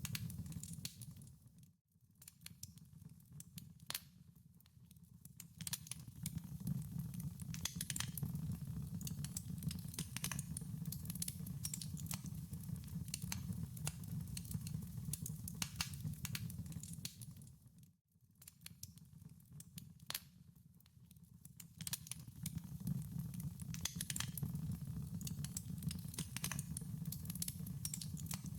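Wood fire burning in a fireplace, crackling with many sharp pops over a low steady rumble. The crackle fades almost out and comes back twice, about sixteen seconds apart.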